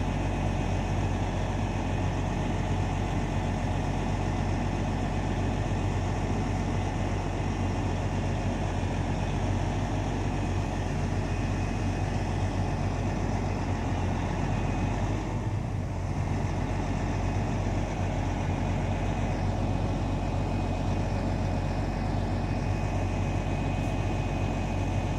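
Log truck's diesel engine running steadily with a deep hum while it drives the hydraulics of its self-loading knuckleboom crane.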